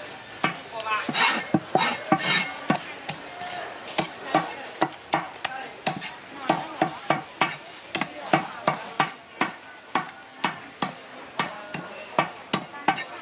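Meat cleaver chopping a cooked chicken through the bone on a thick round wooden chopping block: a quick, steady run of sharp strikes, about two or three a second.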